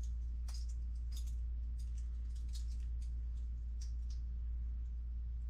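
Faint scattered clicks and rustles of a pacifier gag's strap and buckle being handled and fastened behind the head, over a steady low hum.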